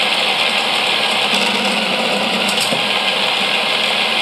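Motorised toy roller coaster built from clamping bricks running: its Power Functions motor drives the ride while the cars rattle along the plastic track, a steady whirring clatter.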